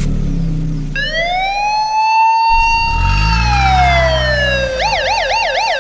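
Police car siren sound effect over a car engine running. The siren rises about a second in, holds, slides down, then switches to a fast warbling yelp near the end.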